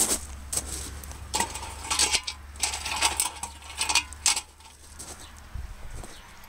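Chrome car hubcap clinking and scraping on gravel as it is picked up and tipped to empty out rainwater: a string of short metallic knocks over the first four seconds or so, then it goes quieter.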